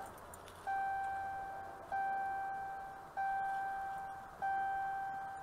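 A pickup truck's dashboard warning chime dinging four times, about once every 1.2 seconds, each ding fading before the next. It is sounding with the ignition switched on and the driver's door open.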